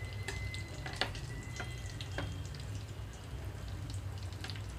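Aloo bondas deep-frying in hot oil, a steady bubbling sizzle with scattered sharp pops and clicks as they are turned with a slotted ladle, over a low steady hum.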